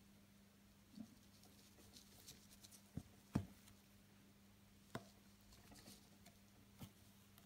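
Faint, scattered taps and rustles of hands working a needle and ribbon through burlap in a plastic embroidery hoop, about five small clicks with the sharpest near the middle, over a low steady hum.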